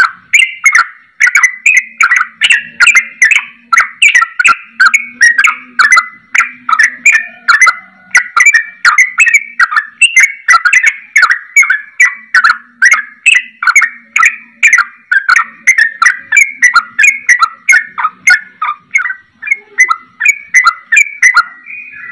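Yellow-vented bulbul (trucukan) singing fast and without pause in the 'ropel' style, a loud string of short chattering notes at about two to three a second, in a song style called 'cucak rowo' voice, after the straw-headed bulbul.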